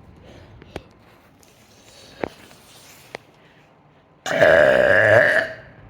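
A person's deliberate burp, loud and about a second and a half long, starting about four seconds in after a few faint clicks. It has little echo.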